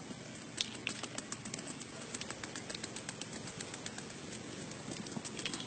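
A blade shaving the rind off a sugar cane stalk: quick, irregular scraping and cutting strokes, several a second, over a steady outdoor background hiss.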